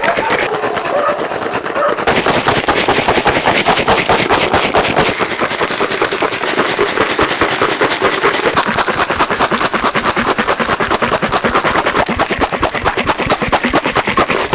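Ice cubes and rock salt rattling in a plastic tub shaken hard by hand, a fast, continuous clatter: the tub is being agitated to churn the custard in the jar inside into ice cream.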